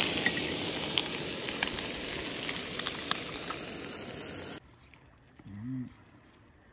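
Trout frying in butter in a small camping frying pan: a steady sizzle with scattered little pops and crackles, cutting off abruptly about four and a half seconds in.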